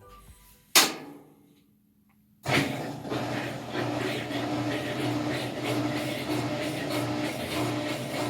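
A sharp click, then after a short silence the drain pump of a Whirlpool top-load washer starts suddenly and runs with a steady hum and a pulsing whir as the drain cycle begins.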